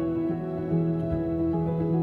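Soft instrumental background music with slow, held notes.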